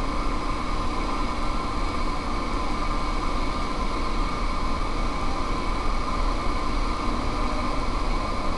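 Steady whirring buzz of Blade Nano QX micro quadcopters' motors in racing flight, holding an even level throughout.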